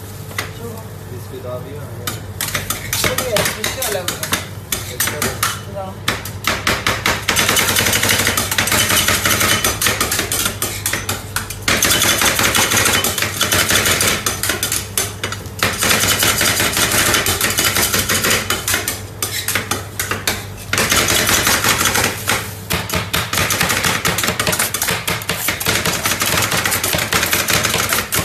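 Metal spatulas rapidly chopping and scraping ice cream mixed with Oreo cookies on a steel cold plate: a fast, continuous clatter of metal strikes on metal, lighter for the first several seconds, then loud and dense with a few brief breaks. A steady low hum runs underneath.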